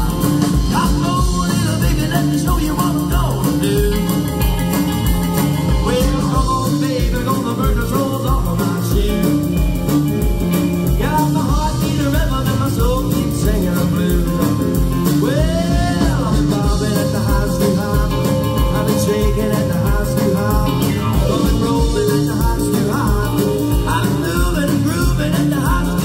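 Rock and roll band of piano, electric guitars and drums playing an instrumental break with a steady driving beat, with sliding notes about halfway through.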